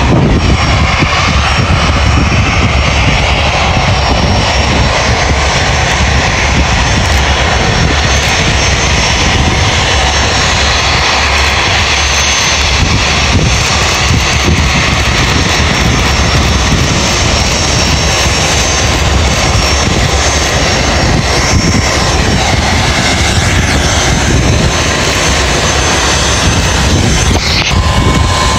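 Twin rear-mounted turbofan engines of a business jet running loud and steady as it taxis close by: a dense rush with a thin, steady high whine on top.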